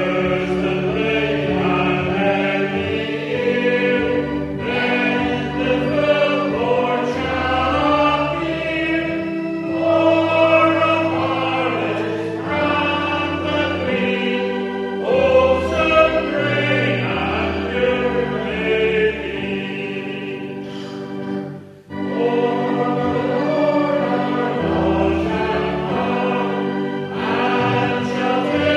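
A congregation singing a hymn with instrumental accompaniment, held chords under the voices. There is a brief pause between lines about three-quarters of the way through.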